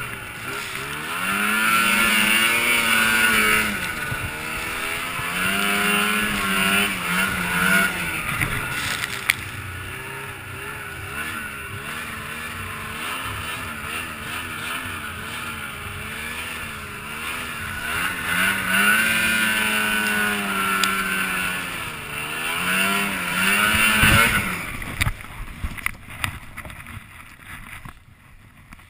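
Snowmobile engine revving up and down again and again while ploughing through deep snow, its pitch rising and falling in surges. About 25 seconds in the engine falls away, leaving quieter knocks and rustling, with the sled stuck in a drift.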